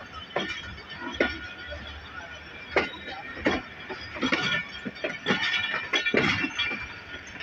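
Passenger train's wheels clacking over rail joints and points, a sharp knock roughly every second at an uneven pace, over a low running rumble and a faint high wheel squeal.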